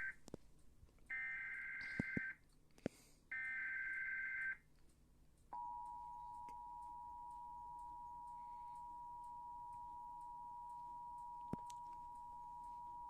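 Emergency Alert System broadcast alert: the tail of one burst of SAME header data and two more bursts of about a second each, then the steady two-tone EAS attention signal held for about eight seconds, announcing a flash flood warning.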